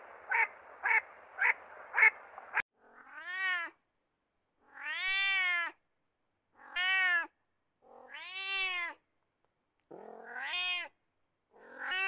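A duck quacks about five times in quick succession. After a sudden cut, a small spotted wild cat meows six times, each meow drawn out and rising then falling in pitch, about one every second and a half.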